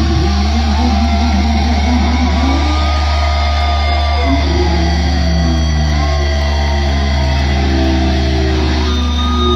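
Death metal band playing live through a venue PA, loud: distorted electric guitars play a chugging riff over drums and bass, with notes stepping in a repeated pattern from about halfway through.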